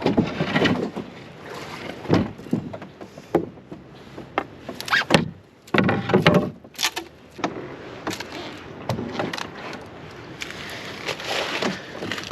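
Canoe knocking and scraping against downed branches and logs as it is worked through a blockage: irregular scrapes with a cluster of sharp knocks about five to seven seconds in.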